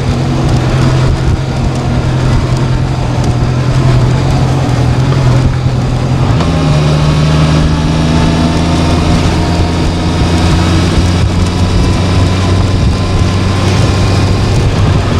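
Honda CB650F inline-four engine running steadily on the move, its note stepping up in pitch about six seconds in, under a steady rush of wind and road noise.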